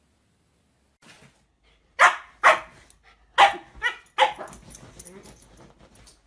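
A dog barking: five short, sharp barks in quick succession starting about two seconds in, followed by fainter low sounds.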